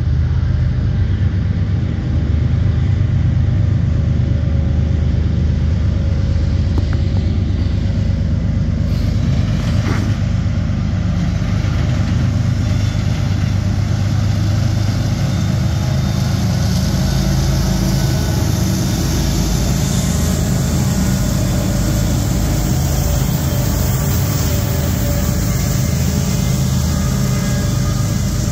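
Diesel-electric freight locomotives in Union Pacific livery approach and pass close by, their engines making a steady, heavy low rumble. Wheel and rail noise grows from about two-thirds of the way through as the locomotives and the first hopper cars go by, with a single sharp clank about a third of the way in.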